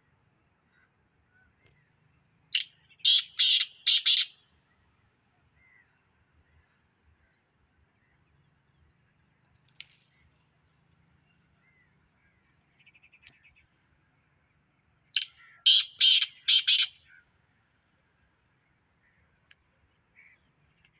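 Black francolin (kala teetar) calling twice, about twelve seconds apart. Each call is a loud, harsh, grating phrase of about four rasping notes lasting around two seconds.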